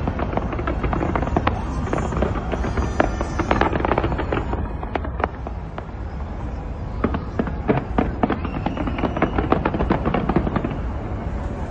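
Fireworks display: rapid bangs and crackling shell bursts over a continuous rumble. They ease off briefly around the middle, then come thick and fast again.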